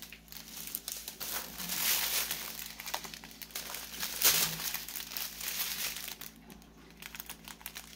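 Crinkling of thin plastic as a strip of small sealed bags of round resin diamond-painting drills is handled and unfolded: irregular crackles, loudest about halfway through and quieter in the last second or so.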